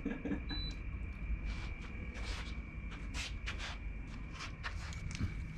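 Scattered light clicks, taps and rustles of eating from plastic meal containers, over the steady hum of a room air conditioner.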